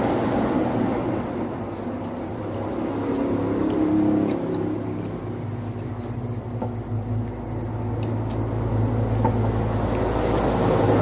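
Steady low engine rumble that swells and eases, with a few faint clicks.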